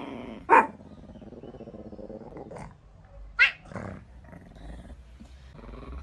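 A dog growling, with two sharp, loud barks, one about half a second in and one past the middle.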